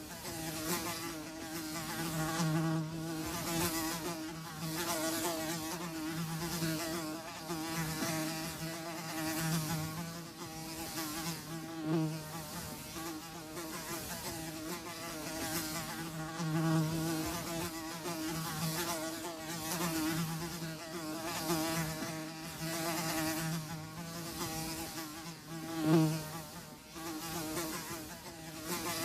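Flies buzzing: a steady wingbeat hum that keeps swelling and fading, with one brief loud close pass about 26 seconds in.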